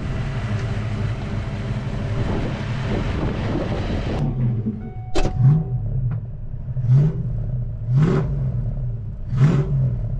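Freshly swapped Ford 5.0 V8 running on its first start, idling steadily at first, then heard from inside the cabin being revved in short blips, about four times over the last few seconds, with a sharp knock about five seconds in.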